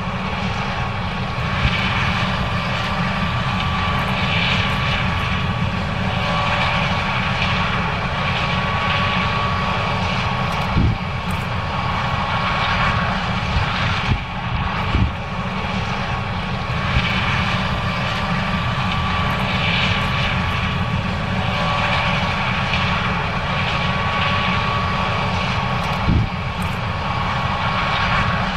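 John Deere S670 combine running steadily: a constant engine and machinery drone with a faint steady whine, broken by a few brief knocks.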